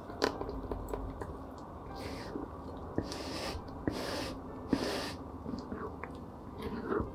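Food-preparation handling sounds: a few light clicks and several short scraping swishes.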